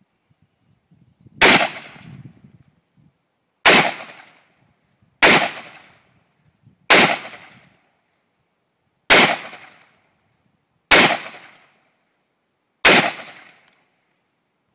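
AR-15 rifle fired seven times in slow, single semi-automatic shots, about one every one and a half to two seconds, each crack trailing off briefly.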